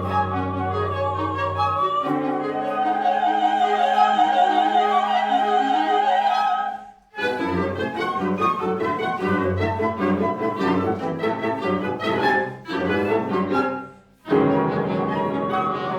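Classical, opera-style music with orchestra and a long held melody line with vibrato. It breaks off briefly twice, about seven seconds in and again about fourteen seconds in.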